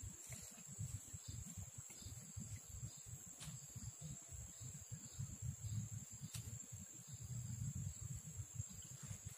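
A steady, high-pitched insect trill held without a break, over a low fluttering rumble of wind on the microphone, with a few faint clicks.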